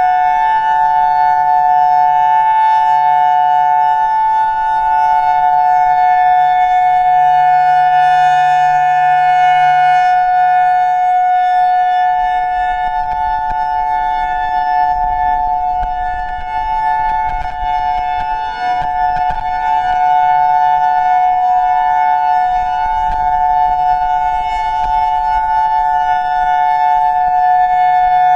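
Federal Signal EOWS 612 outdoor warning siren sounding the steady Alert signal, two tones held together in a steady chord, its loudness dipping slightly now and then in the second half.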